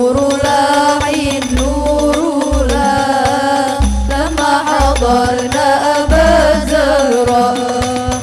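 Sholawat, an Islamic devotional song, playing loudly over a sound system: a wavering sung melody over heavy bass notes that come every second or two.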